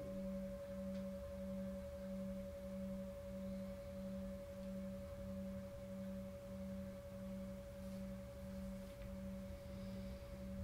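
Meditation drone of sustained pure tones: a steady higher tone held over a lower tone that swells and fades about one and a half times a second.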